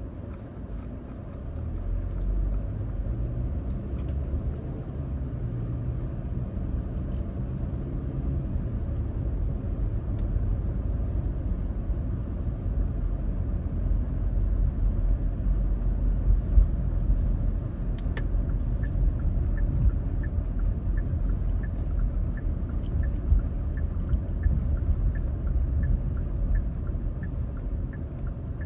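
Car driving slowly, with low road rumble and engine hum heard inside the cabin. About two-thirds of the way in there is a click, and then the turn signal starts ticking steadily, about one and a half ticks a second.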